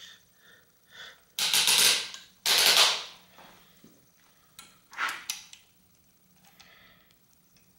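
Two loud bursts of rapid rattling clicks, about a second apart, then a shorter, fainter one: small metal parts and tools being handled while bar-end shifters are remounted.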